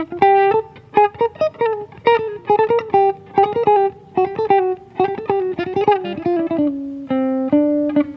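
Solo guitar playing a slow, improvised melody of single plucked notes, with two longer notes held near the end.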